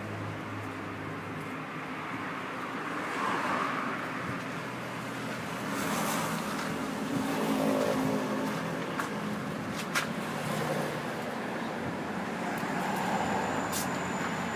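Motor vehicle engine running steadily at idle, with a few sharp clicks over it.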